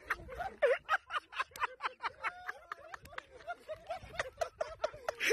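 People's voices and laughter, made of many short, quick sounds.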